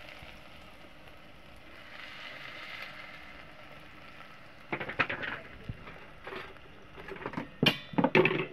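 Chopped onions sizzling in hot oil in an aluminium pot. About five seconds in come sharp knocks, with a louder cluster near the end.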